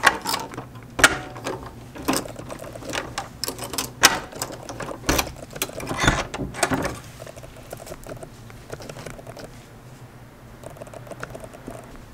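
Key rattling and turning in a door lock and a metal lever handle clicking as a wooden door is unlocked and opened: a run of sharp clicks and clatters over the first seven seconds or so, then only faint ticks.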